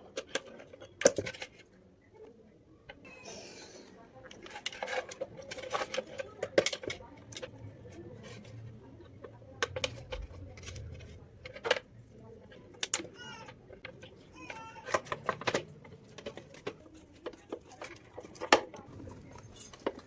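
Irregular clicks, knocks and clinks of small hard parts being handled and set down, with no motor running.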